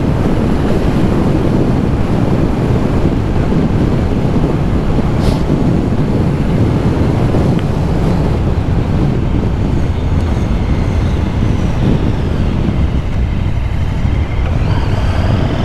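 Heavy wind rush on the microphone from riding a KTM 1290 Super Duke R at speed, with the bike's V-twin engine running underneath; the engine note rises near the end.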